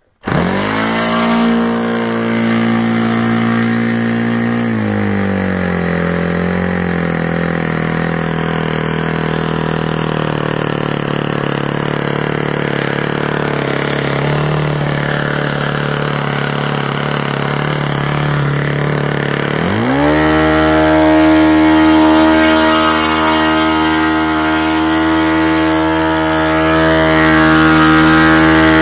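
Saito .65 single-cylinder four-stroke glow engine turning a 13x6 propeller: it starts at once, runs briefly at a middling speed, then drops to a low idle. Just before two-thirds of the way through it is opened up quickly to a high, steady full-throttle run, which the owner judges a good running engine with no issues.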